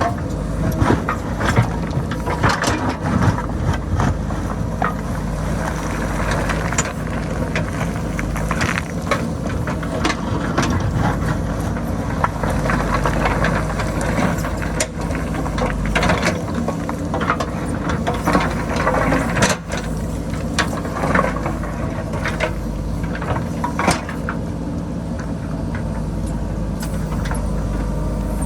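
JCB backhoe loader's diesel engine running steadily under load as it digs into a rocky hillside, with frequent short knocks and clatter of bucket and stones against rock.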